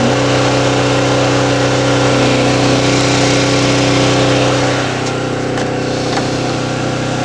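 Portable generator engine running steadily, a very noisy constant hum. It turns slightly quieter and duller about five seconds in.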